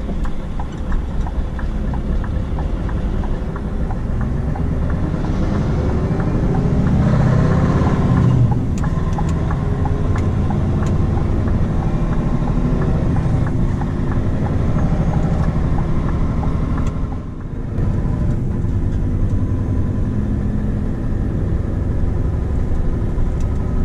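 Scania R520's V8 diesel engine heard from inside the cab while the truck is driven, running steadily under load. Its pitch rises around seven seconds in as it accelerates, and its level dips briefly about seventeen seconds in.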